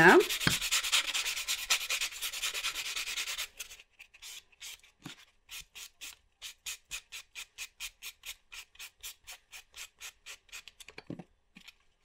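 Nail buffer block rubbing back and forth over an acrylic nail to smooth it: fast continuous scrubbing for the first three and a half seconds, then quieter separate strokes, about three a second.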